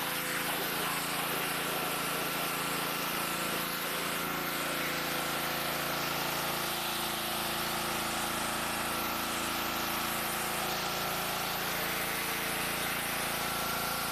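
Power washer running steadily as water is sprayed onto a car's freshly polished paint: an even motor hum under a constant hiss of spray.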